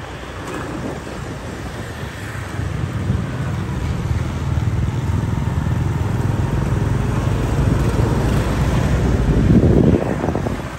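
Wind rush on the microphone and road noise of a motorbike riding through slow city traffic. It builds from a few seconds in to a loud low rumble just before the end, then drops off sharply.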